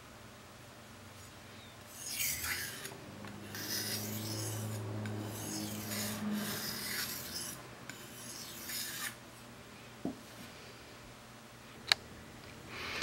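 High-carbon steel kitchen knife blade stroked back and forth along a wet whetstone: about half a dozen scraping strokes over roughly seven seconds, sharpening the edge after a burr has been raised. A sharp click near the end.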